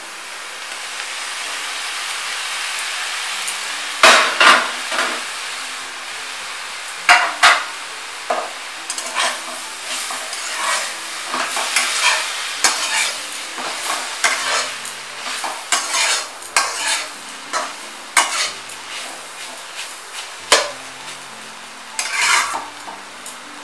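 Saag greens sizzling as they are tipped into hot ghee in a kadai. From about four seconds in, a metal spatula scrapes and knocks against the pan as the greens are stirred with fried grated coconut and badi, over a continuing frying sizzle.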